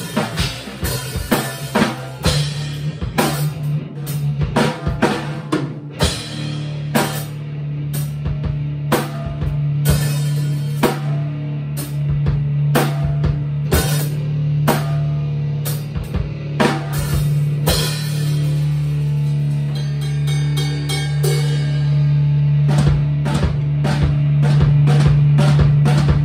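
Live rock jam of a drum kit and an electric bass guitar: kick, snare and cymbal hits over a low, sustained bass note, the drumming turning into quicker, denser hits near the end.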